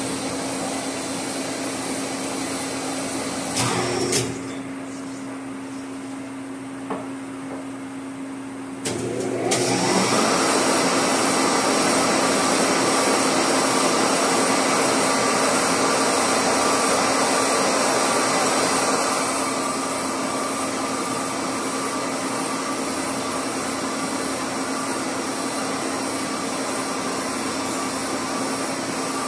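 Machine-shop motors running with a steady whir and hum. About four seconds in the sound drops to a quieter hum; about nine seconds in a motor spins up again and runs louder, easing down a step about two-thirds of the way through.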